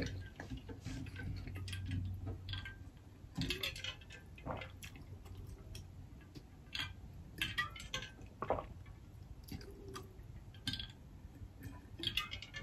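Quiet, scattered small clicks and mouth sounds: a person swallowing as she drinks from an insulated water bottle.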